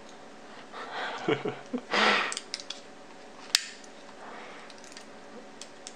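Small metal parts of a bow clicker and a multitool being handled: scattered rustling and light ticks, with one sharp click about three and a half seconds in.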